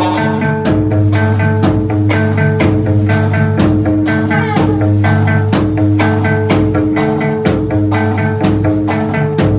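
Live rock band playing loudly: electric guitar over a drum kit keeping a steady beat.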